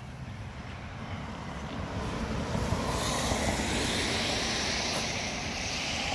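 Road traffic on a wet road: a steady hiss of tyres with a low rumble that swells about two to three seconds in and then holds.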